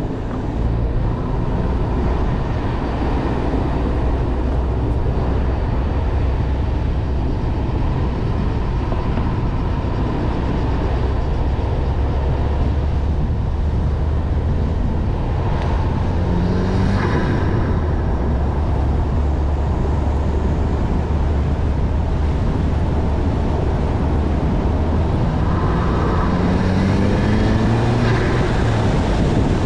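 Ford Focus RS Mk3's turbocharged 2.3-litre four-cylinder engine pulling the car along at road speed, with a steady low drone under tyre and wind noise. Twice the engine note rises as the car accelerates, briefly about halfway through and for longer near the end.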